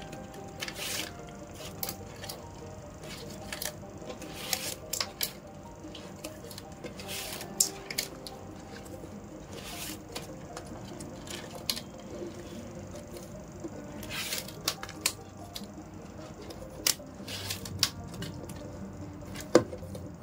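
PE plastic rattan strands being woven through a basket's stakes: irregular scraping and sharp clicks as the strands are pulled and pressed into place.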